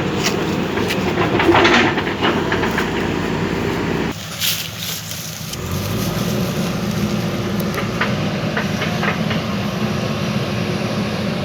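JCB backhoe loader's diesel engine running steadily, with scattered metallic clanks and knocks. The low rumble drops away briefly about four seconds in, then returns.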